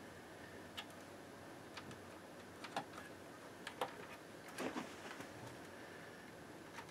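Irregular small plastic clicks and taps of wire-harness connectors being pushed by hand onto the header pins of a tuner's circuit board, the loudest group about halfway through.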